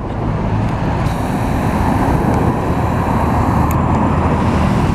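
Steady road traffic close by: car engines running with a continuous rumble and road noise.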